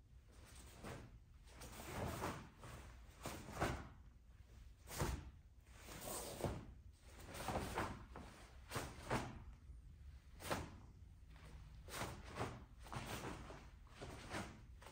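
Taekwondo form performed barefoot: a series of short swishes, snaps and thuds as the uniform snaps and the feet strike and land on the mat with each kick, strike and stance, coming irregularly about once a second.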